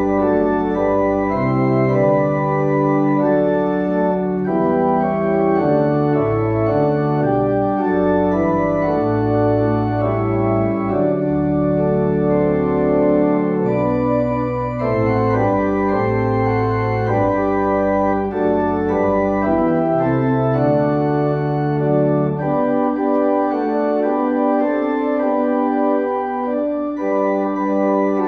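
Church organ playing a hymn tune in sustained, held chords that change step by step; the lowest bass notes drop out about 23 seconds in, leaving the upper chords.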